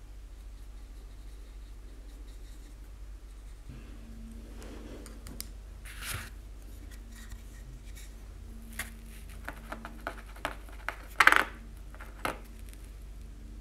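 Small handling sounds of a 3D-printed plastic badge and paintbrush on a cardboard sheet: a string of light clicks, taps and scrapes in the second half, the loudest a short scrape about three-quarters of the way through.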